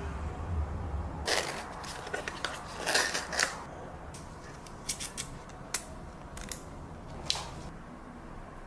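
Watch packaging being handled and opened by hand: a stretch of rustling and tearing of paper and cardboard about a second in, then a few sharp clicks and taps.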